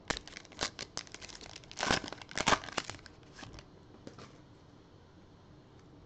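Foil wrapper of a trading-card pack being torn open and crinkled by hand, a dense crackle that dies down about three and a half seconds in, leaving faint rustle of cards being handled.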